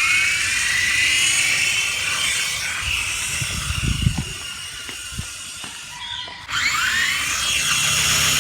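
Small electric RC helicopter's motor and rotor whining at a high pitch. It spools up with a rising whine, holds steady, cuts out briefly about six seconds in, then spools up again.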